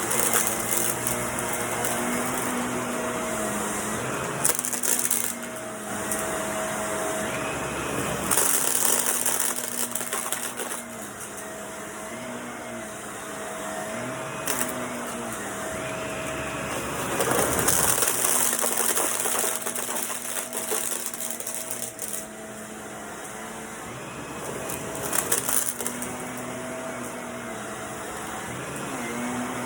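Vacuum cleaner running, a steady motor hum whose pitch dips briefly every few seconds, with several stretches of louder hissing airflow.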